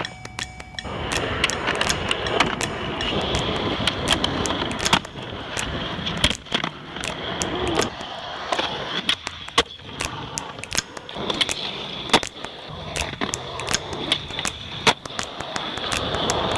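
Skateboard wheels rolling on concrete, with sharp clacks and knocks scattered throughout from the board's tail popping, the trucks hitting the ledge and landings.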